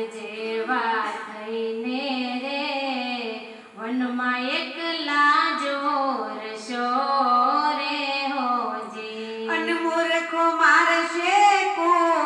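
A woman singing a Gujarati devotional bhajan into a handheld microphone, holding long notes that slide up and down, with a short breath pause about four seconds in.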